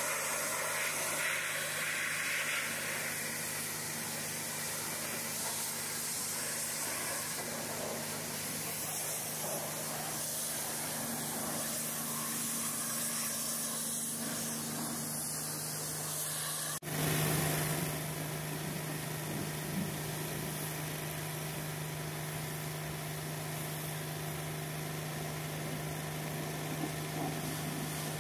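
Hot-water pressure washer running steadily, its wand spraying with an even hiss over a constant low engine hum; the sound jumps abruptly in level about seventeen seconds in, then carries on.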